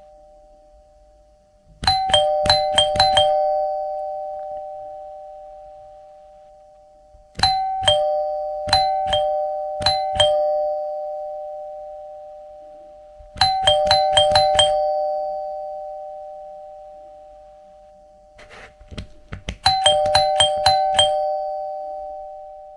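Doorbell chime rung four times, about every six seconds. Each ring is a quick run of bright strikes that settles into two held tones, which fade slowly until the next ring.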